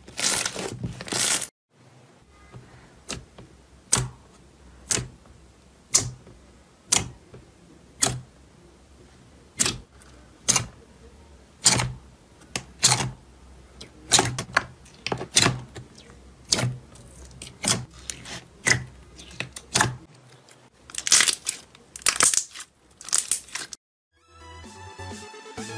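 Clear slime being pressed and poked in a plastic tub, giving sharp sticky pops and clicks about once a second. At the very start, thick pink slime is kneaded with dense crackling, and electronic music with a steady beat comes in near the end.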